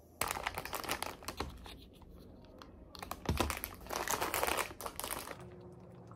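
Paper bakery bag crinkling and rustling as bread is handled and pulled out of it, in two spells: a short one at the start and a longer one in the middle.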